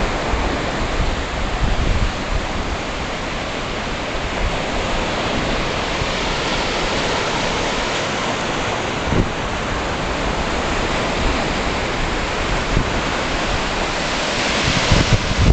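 Surf breaking and washing up a sandy beach, a steady rushing hiss that swells louder near the end, with wind rumbling on the microphone.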